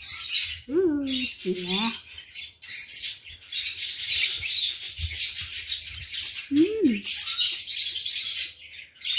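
Many birds chirping and twittering without pause, a dense high-pitched chatter.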